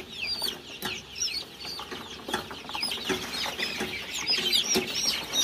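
Many young chicks peeping together, a dense run of short, high, falling cheeps, with a few sharp clicks among them.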